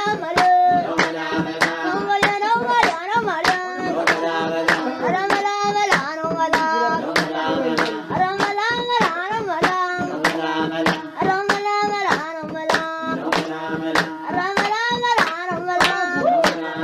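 Voices singing a song over steady rhythmic hand clapping, a little over two claps a second.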